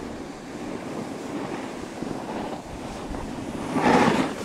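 Wind rushing over the camera's microphone while riding a snowboard down the slope, with the hiss of the board sliding over snow. A louder rush comes near the end.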